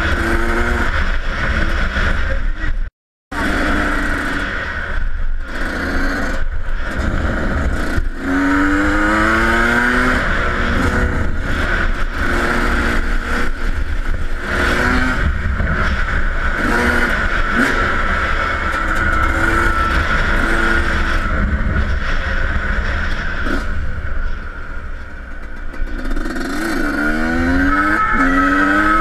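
Yamaha YZ125 two-stroke motocross bike ridden hard, its engine revving up in rising sweeps again and again as it accelerates through the gears. Heavy wind buffeting on the helmet-mounted microphone; the sound cuts out for a moment about three seconds in.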